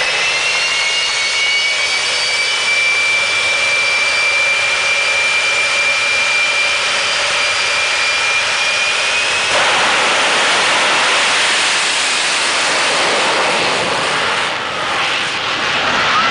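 GE J79 turbojet of a jet-powered Freightliner semi drag truck running at high power, a steady high whine over a loud rushing noise. At about nine and a half seconds the whine gives way to a broader, rougher rushing noise as the truck launches down the strip.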